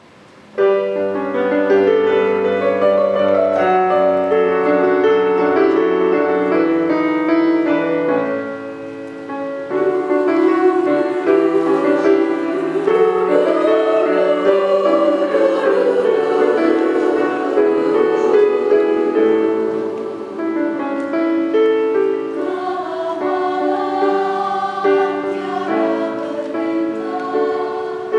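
Women's choir singing in several parts at once, with held chords. The singing starts about a second in, and there is a brief drop in level about a third of the way through.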